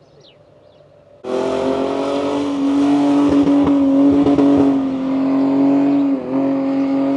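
Toyota Land Cruiser engine held at high revs, a loud steady drone with a slight dip in pitch near the end, as the SUV drives through soft dune sand. It comes in abruptly about a second in, after a faint, quieter stretch.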